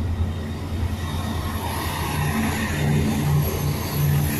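Chiltern Railways Class 168 diesel multiple unit pulling out under power: a low diesel engine drone, with the engine notes growing louder from about halfway in as it draws past.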